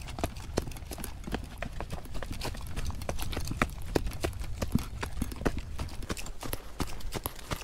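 Trail runners' footsteps at a run, quick irregular footfalls over a steady low rumble.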